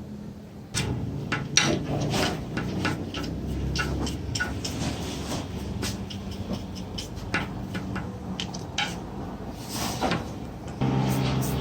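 Irregular clinks, clicks and knocks of hard parts being handled and set down while a GPU mining rig is worked on, over a low steady hum.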